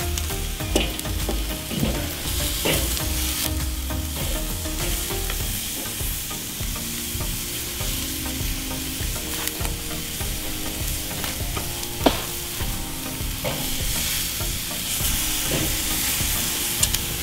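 Chicken sizzling steadily on the hot grate of a charcoal kettle grill. A few short clicks of metal tongs against the grate are heard, the sharpest about twelve seconds in.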